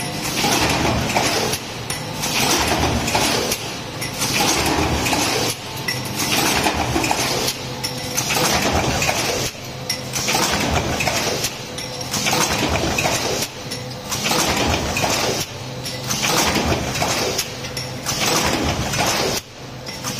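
Stamping press running a multi-station stamping die, clattering with metal clinking of the parts. The noise rises and falls in a regular cycle about once every two seconds.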